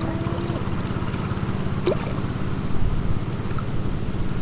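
A small engine running steadily with a rapid low chugging, with a brief high rising squeak about two seconds in.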